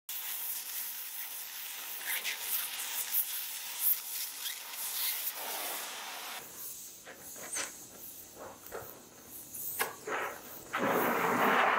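Handheld gas torch flame hissing as it plays over a knife handle, with scattered crackles and clicks; the hiss grows louder near the end.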